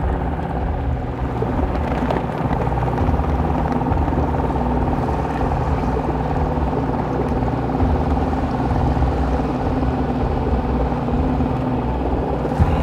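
Boat motor running steadily as the boat moves slowly across the water, an even hum with no change in speed.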